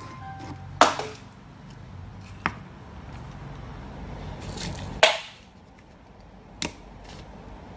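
Four short, sharp knocks or thumps over a low steady hum, the loudest about five seconds in.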